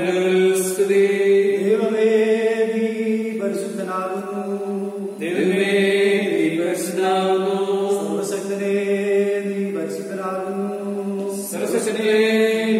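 Slow sung chant in long held notes that move to a new pitch every couple of seconds, over a steady low drone.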